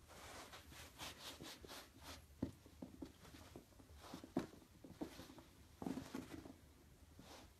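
Faint, irregular scratching and rustling with light taps, as a pet squirrel's claws scrabble about while it plays with a person.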